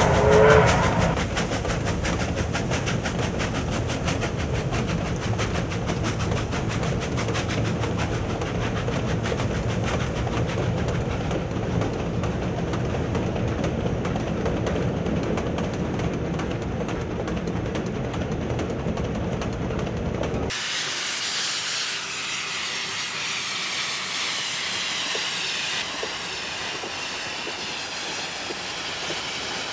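Steam-hauled freight train passing: the tail of a steam whistle at the very start, then a steady rolling rumble and hiss of the locomotive and wagons. About two-thirds of the way through, the sound cuts abruptly to a thinner, higher rattle of a train running on the rails.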